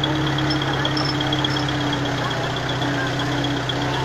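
A vehicle's engine running steadily while the vehicle fords a shallow river, with water splashing around it and a high, quickly pulsing whine on top.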